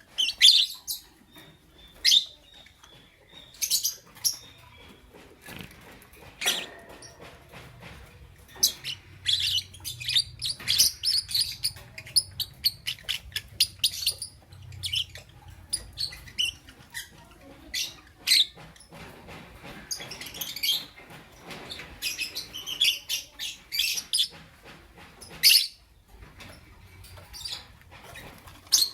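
Lovebirds chirping: a busy run of short, sharp, high-pitched chirps and squeaks coming in irregular clusters.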